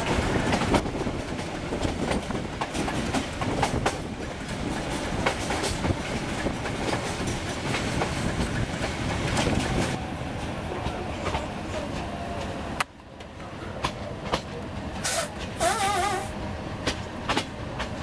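Metre-gauge passenger coach running along the line, heard through an open window: steady rumble and wind with the wheels clacking over the rail joints. About thirteen seconds in the noise drops off abruptly and comes back quieter.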